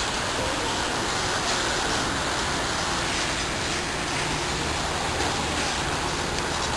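Steady rushing noise of a MAX light rail train running, with a faint low hum coming in about four seconds in.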